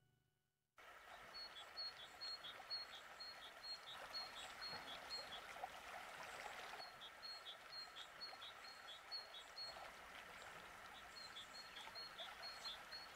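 Faint ambience of river water flowing at a shallow, icy sandbank edge. Over it a small bird calls a short high note over and over, about three times a second, in three bouts.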